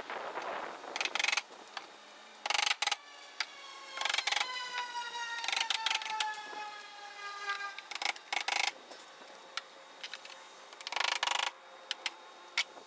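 Small hammer tapping nails into a thin plywood strip on a wooden boat hull, in short bursts of quick blows every second or two. In the middle a pitched tone with overtones glides slowly downward for about four seconds.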